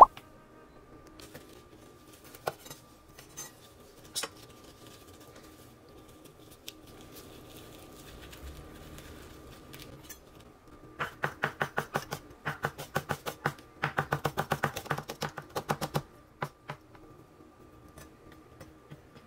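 Kitchen knife chopping rolled shiso leaves on a wooden cutting board: three quick runs of sharp knocks, about six a second, starting about eleven seconds in and stopping around sixteen seconds, after a stretch of quieter handling of the leaves.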